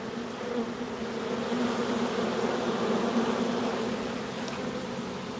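A swarm of honey bees buzzing: a steady, even hum of many bees at once.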